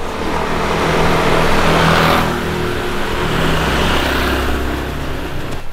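Motor vehicle engine running nearby: a steady low hum, with a louder rush of noise about two seconds in.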